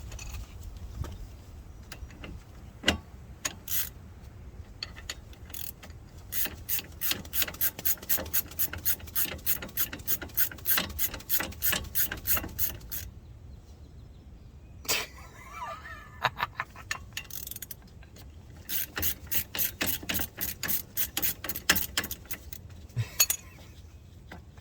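Hand ratchet wrench clicking as bolts are run in during reassembly of the brakes: two long runs of quick, even pawl clicks, several a second, with a few single clicks between.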